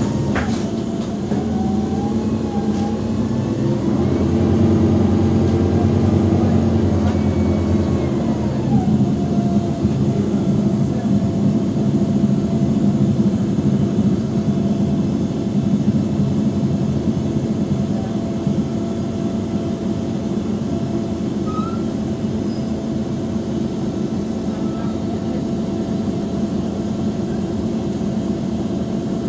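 Mercedes-Benz OM457hLA six-cylinder turbodiesel of a stationary articulated Conecto G bus idling steadily. The engine note rises a little about four seconds in and settles back at about eight seconds.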